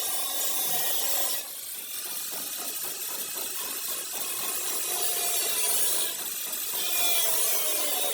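Power grinder working the car's sheet-metal body panels: a steady abrasive hiss with a motor pitch that drifts and sags as the tool is pressed in.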